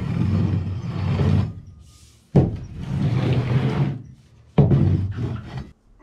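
Rake dragged across a chicken coop's wooden floor, scraping out old straw bedding in three long strokes, about two seconds apart.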